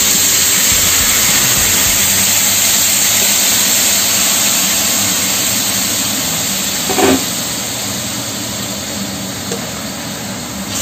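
Soy sauce and wine poured into a hot stainless steel frying pan around a browned pork leg, sizzling and boiling hard with a loud hiss. The hiss eases slowly as the liquid reduces.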